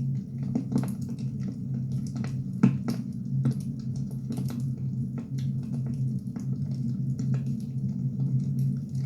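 Firewood burning: irregular crackles and sharp pops over a steady low hum, with one louder pop a little under three seconds in.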